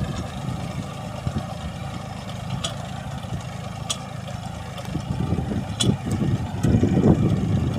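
Engine-driven farm machine running steadily with a low rumble, a few sharp metallic clicks, and growing louder near the end.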